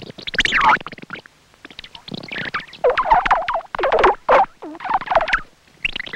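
Animated-film soundtrack effects: clusters of short, rapid bursts of sound, many sliding down in pitch, separated by brief gaps.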